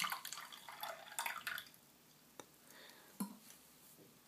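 A shaken cocktail poured from a cocktail shaker through its strainer lid into a glass tumbler: a faint splashing trickle for about a second and a half, then a few scattered drips and light clicks.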